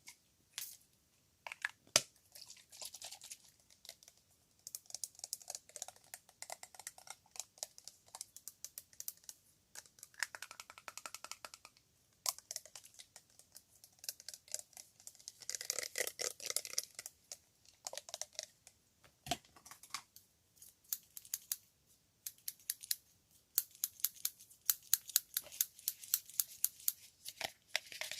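Fast ASMR tapping and clicking: runs of short, sharp taps in quick succession, broken by brief pauses, with a denser rustling stretch about halfway through.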